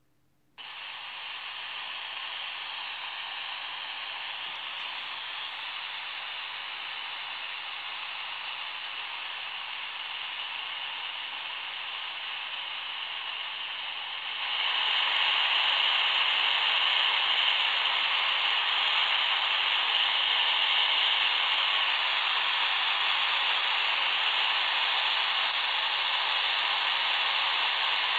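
Shortwave radio static from a smartphone software-defined radio receiver in AM mode: an even hiss with no voice or music coming through. It starts about half a second in and gets louder about halfway through.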